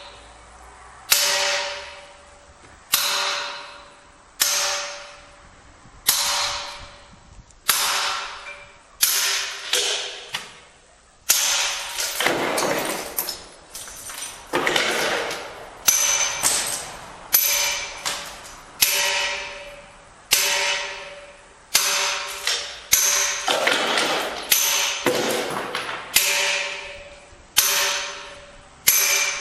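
Hand carving pink Portuguese marble: a hammer striking a chisel about once every second and a half, each blow a sharp clink that rings on briefly.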